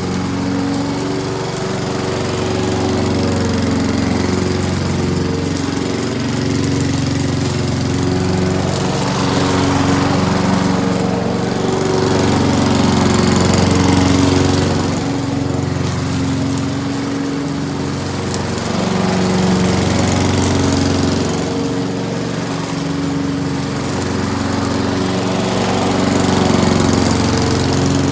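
Gas walk-behind push mower engine running steadily while cutting grass. It grows louder and softer every few seconds as the mower passes close and then moves away.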